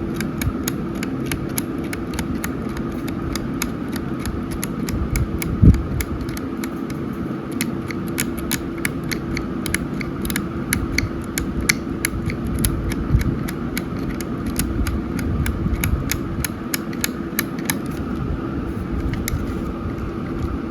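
Irregular small clicks and light scratching, several a second, from working on the corroded battery contacts inside an opened Logitech Bluetooth keyboard. One louder knock comes about six seconds in, over a steady low hum.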